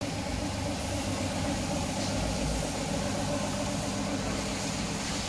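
Air compressor running steadily, a constant low hum with no change in pitch.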